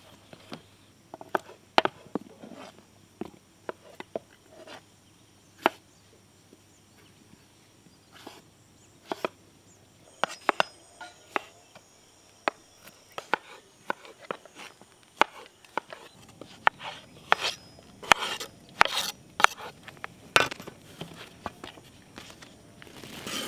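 Knives chopping strawberries on wooden cutting boards: irregular sharp knocks of the blades striking the boards, a little busier and louder in the second half.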